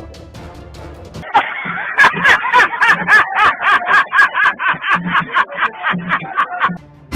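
The fading tail of an air horn blast, then an edited-in comic music sound effect: a quick, even run of pitched pulses, about three or four a second, that stops abruptly.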